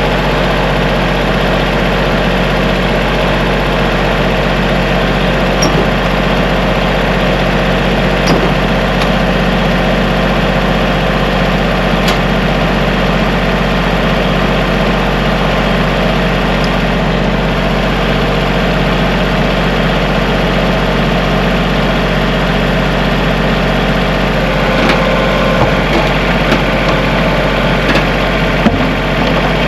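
Kubota L3301 tractor's three-cylinder diesel engine idling steadily, running again after a no-start fault was fixed. A few faint clicks come near the end.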